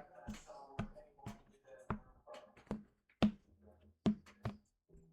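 Lock pick clicking and tapping against the pins of a Master Lock 911 padlock: sharp, irregular clicks about twice a second, two of them louder near the end, over faint background music.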